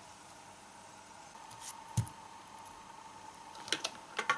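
Handling noise from tweezers and a lithium-ion drill battery pack on a workbench: one knock about two seconds in, then a few light clicks near the end, over a faint steady high hum.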